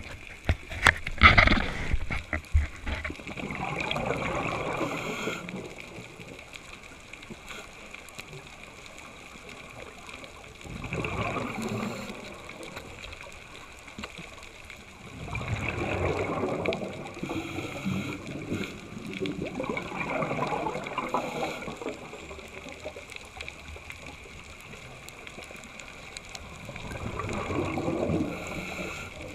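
Scuba diver breathing out through a regulator underwater: bubbling bursts of exhaled air, each a second or two long, about five times, every four to seven seconds. A few sharp knocks near the start.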